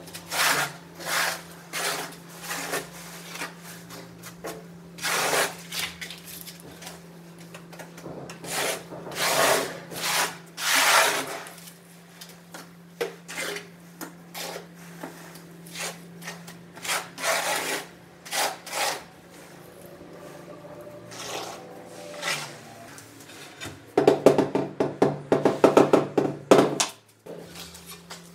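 Notched steel trowel scraping and combing tile adhesive over a concrete floor in repeated strokes. Near the end, a rubber mallet taps a large floor tile in a quick run of knocks, bedding it into the adhesive.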